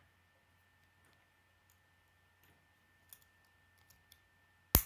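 Plastic K'nex building pieces being handled and clicked together: a few light clicks, then one sharp, loud snap near the end as a part snaps into place.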